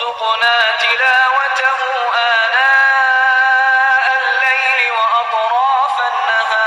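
A male voice chanting an Arabic dua in long held, ornamented notes, processed into a thin, bass-less tone as a ringtone.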